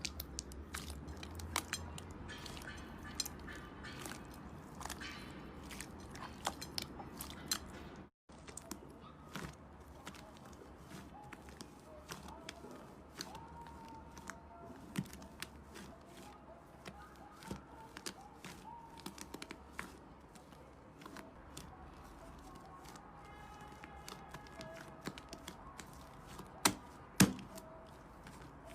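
Slime being squeezed and worked by hand: many small sticky pops and crackles, with a short break about eight seconds in and a few sharper taps near the end.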